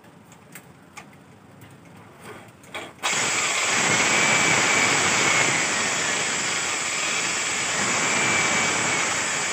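Electric drill with a hinge-boring bit cutting a concealed-hinge cup hole into plywood. After a few light clicks, the drill starts suddenly about three seconds in and runs steadily under load, with a high motor whine over the noise of the bit cutting the wood.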